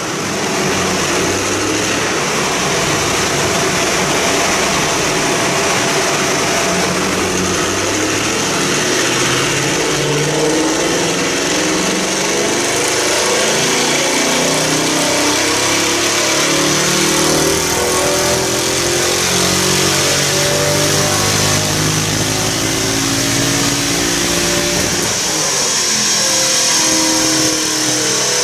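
Mercedes-Benz C-Class estate's engine running under load on a chassis dyno, its pitch climbing slowly through a long pull. About 25 seconds in the low end drops away and the note changes as the pull ends.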